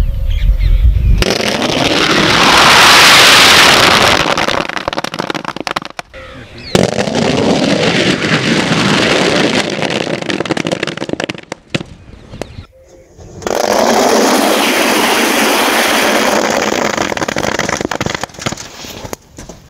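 Tens of thousands of firecrackers packed into an iron trunk going off at once: a loud, dense, continuous crackle of rapid bangs. It breaks off and restarts abruptly several times.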